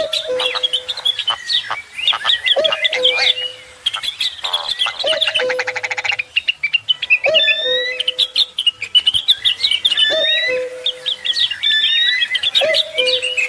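Many birds chirping and twittering together, with a lower short call repeating about every two and a half seconds and a fast rattling trill about halfway through.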